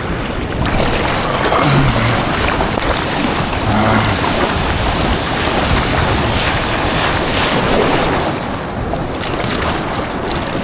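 Ocean water rushing and splashing close to the microphone, with wind buffeting it, as a surfer paddles out through the surf.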